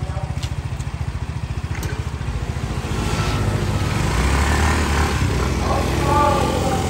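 Small motor scooter engine idling with a rapid, even putter, then revving and pulling away about three to four seconds in, with a second scooter passing close by.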